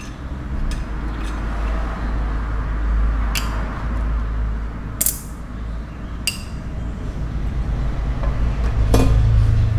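Thin sheet-metal car stereo chassis and its circuit board clinking and knocking in the hands as the board is lifted out, several sharp clicks spread apart, over a steady low rumble that grows louder toward the end.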